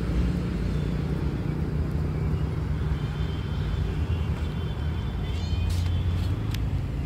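Steady low outdoor rumble, with faint high chirping tones in the middle and a few short sharp clicks near the end.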